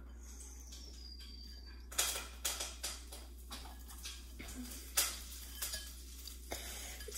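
Pieces of crispy fried chicken being handled in a bowl: a run of sharp crackles and clicks from the crunchy breading and the bowl, starting about two seconds in.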